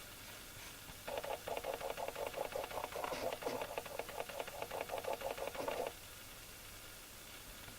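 Motor oil glugging rapidly and evenly from a jug as the engine is topped up from the lower mark on the dipstick; it starts about a second in and stops abruptly some five seconds later.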